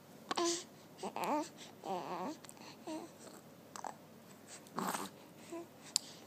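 Newborn baby cooing: a string of short vocal sounds whose pitch rises and falls, one of them wavering, with a breathy sound about five seconds in.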